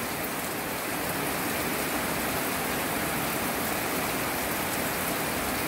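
Steady rain falling with no wind, an even, unbroken hiss of drops on wet ground and puddles.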